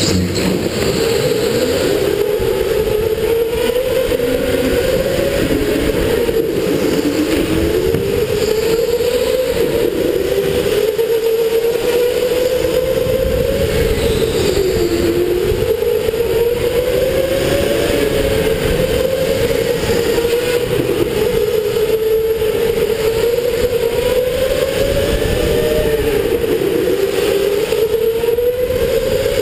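Electric go-kart motor whining, its pitch rising and falling as the kart speeds up and slows through the corners, over a steady low rumble.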